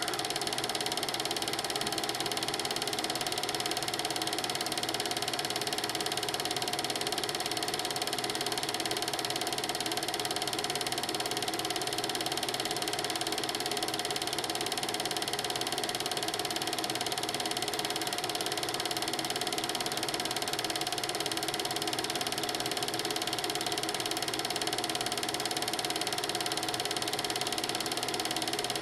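Film projector running, its steady mechanical clatter (Knattern) going on evenly without change.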